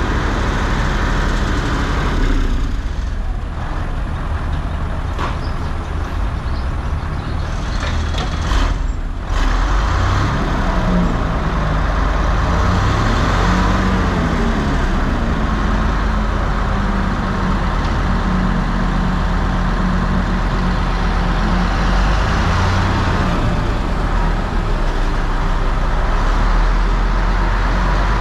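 A heavy engine running steadily. Its low drone wavers up and down in pitch from about ten seconds in.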